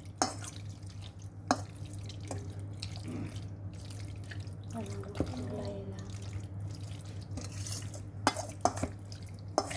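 A metal spoon stirring raw chicken pieces in dark soy sauce in a stainless steel bowl: wet squelching, with sharp clinks of the spoon against the bowl, three of them close together near the end. A steady low hum runs underneath.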